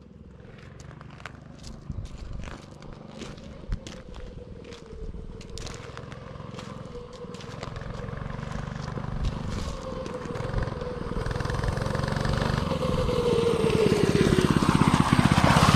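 Coleman CC100X mini bike's 99cc single-cylinder four-stroke engine approaching. It grows steadily louder throughout, and its pitch drops near the end.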